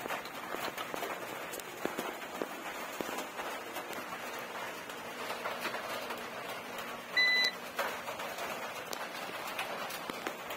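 A single short electronic beep about seven seconds in, over a steady hiss and a few faint clicks.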